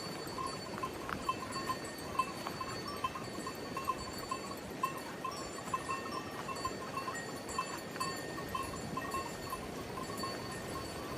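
Bells on grazing livestock clanking irregularly, a few times a second, over a steady rush of water.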